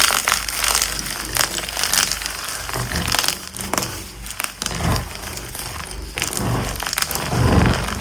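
Dyed gym chalk blocks being crushed, crunching and crumbling in a quick, irregular run of crackles.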